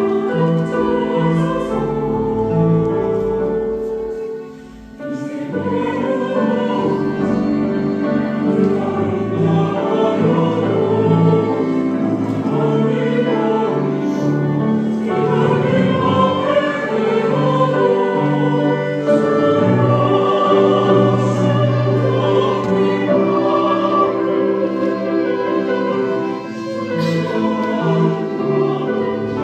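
Church choir singing an anthem in several parts, with a short break in the sound about five seconds in before the voices come back in.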